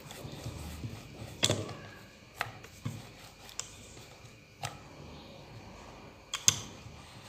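Wooden rolling pin rolling dough balls flat on a wooden board: a low rumble of rolling with several sharp knocks and clicks, the loudest about one and a half seconds in and near the end.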